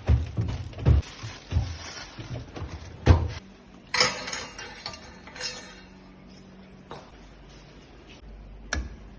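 Dishes and containers being handled, clinking and knocking against each other several times in the first few seconds. A short rattling burst comes about four seconds in and another a little later, then a few single clicks.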